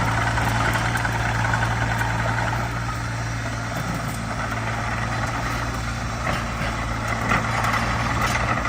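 Diesel engine of a Wacker Neuson EZ38 mini excavator running steadily with an even hum, a little quieter from about three seconds in.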